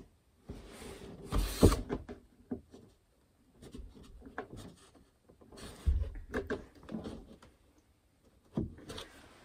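A thin cedar panel being shifted and pressed by hand against a wooden cabinet face to line it up. Irregular scraping and light wooden knocks, the loudest about a second and a half in.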